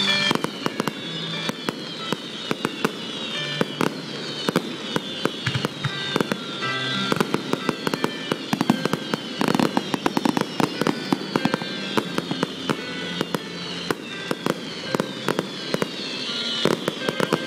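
Fireworks going off in quick succession: a rapid, irregular string of sharp bangs and crackles, with high whistles that fall in pitch again and again.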